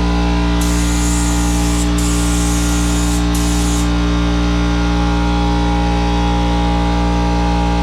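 Paint spray gun hissing on and off as the trigger is pulled, three bursts in the first four seconds, over a steady low hum.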